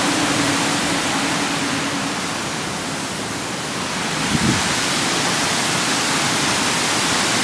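Waterfall rushing: a steady, dense hiss of falling water with great force.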